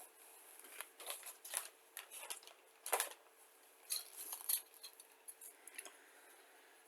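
Hard plastic model-kit parts on their sprues being handled: scattered light clicks and rattles, the sharpest about three seconds in.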